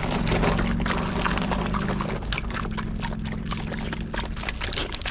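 Dogs eating dry kibble from a bowl close by: rapid crunching and clicks of chewing and of teeth and food against the bowl, over a steady low hum.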